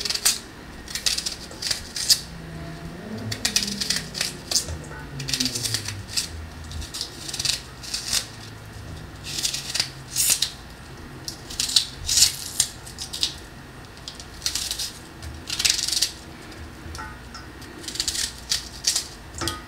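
Sliced onion being broken apart by hand and dropped into a stainless steel bowl of raw chicken wings: irregular crisp crackles and light rustles, a dozen or so short bursts.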